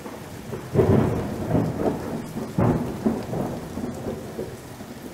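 Thunderstorm: rolls of thunder over rain, with two loud peals about a second and about two and a half seconds in, then dying away.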